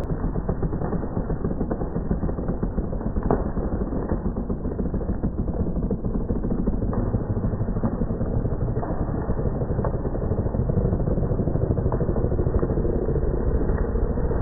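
Slowed-down, deeply pitched-down sound of a dead alder tree coming down: a steady low rumble with a few scattered sharp cracks, swelling slightly toward the end.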